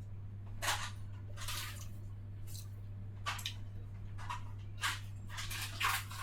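A person drinking from a cup in a series of short sips and gulps, over a steady low electrical hum.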